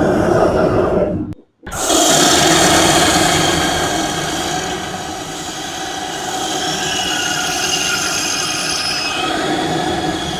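A steady, noisy mechanical whirring with a faint high whine. It cuts out completely about a second and a half in, then starts again and runs on.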